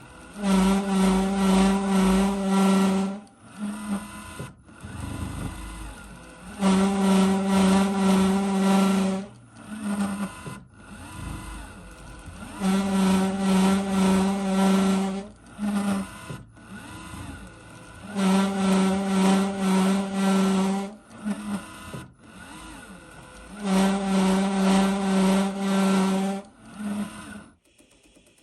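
iRobot Roomba s9+ robot vacuum's motors whining in five strong bursts of about two and a half seconds, each followed by a short blip, over the quieter steady run of the machine. The robot is repeatedly trying and failing to climb over the threshold of an area rug.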